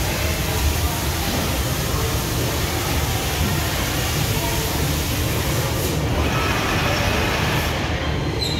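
Prima Platino 1530 4 kW laser cutting machine running: a steady hiss over a low hum and rumble. The high hiss drops away near the end.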